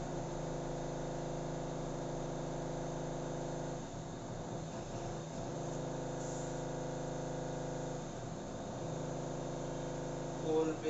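Steady electric hum, a stack of even tones, that wavers briefly twice.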